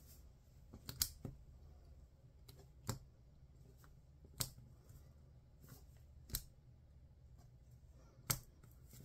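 Snap-off utility knife cutting through thick paper (a drawing over a 220 GSM Fabriano black sheet) on a cutting mat: faint scraping, with a sharp tick from the blade about every one and a half to two seconds, five of them clearly heard.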